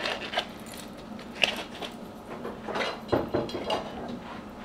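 Scattered soft knocks, clicks and rustles of hands handling things in a kitchen, including disposable gloves being pulled on, over a faint steady hum.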